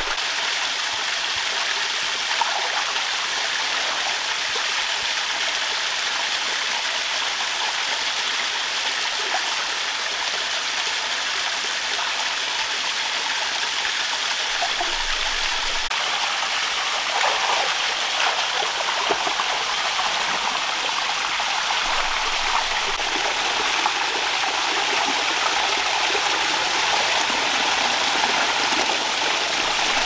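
Shallow rocky stream running over stones and small cascades: a steady rush of water.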